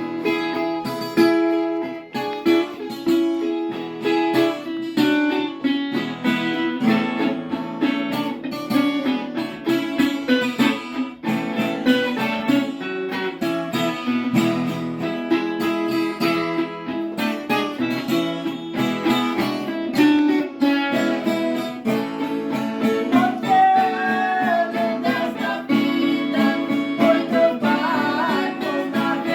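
Acoustic guitar playing a praise song, with strummed chords and picked notes; a melody line with gliding pitch comes in over it near the end.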